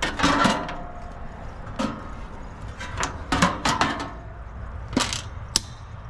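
Sheet-metal top and wire fan guard of a heat pump's outdoor unit clanking and rattling as they are lifted off the cabinet: about half a dozen sharp metal clatters.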